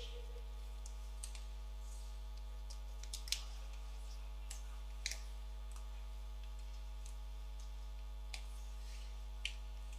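Sharp, scattered clacks of hockey sticks and puck on the ice, a dozen or so at irregular intervals, over a steady low hum of the arena.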